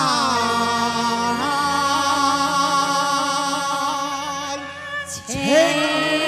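Cantonese opera singing with Chinese instrumental accompaniment: a long, wavering held note that slides down at the start, then a short break about five seconds in and a rising slide into the next note.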